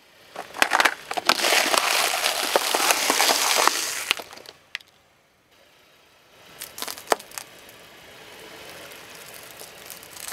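Car tyre rolling over cans of Pringles, loudly crunching the cardboard tubes and the crisps inside for about four seconds. After a short pause, a few sharp cracks as the tyre rolls over hard Chupa Chups lollipops, then a quieter steady crunching.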